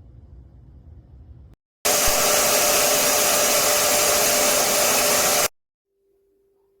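Carpet cleaner's suction motor running, a loud steady rushing whoosh with a hum. It cuts in about two seconds in and stops abruptly after about three and a half seconds.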